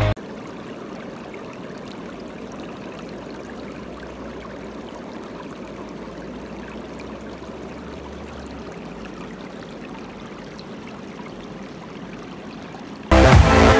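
Shallow river water running over rocks and pebbles: a steady, even rush. Loud music cuts in abruptly near the end.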